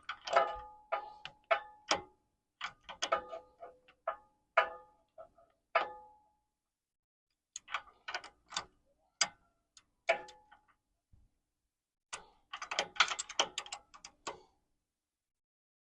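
Ratchet clicking in four bursts of short strokes separated by pauses, each click ringing briefly, as a crow's foot wrench on the ratchet tightens a power steering hose fitting.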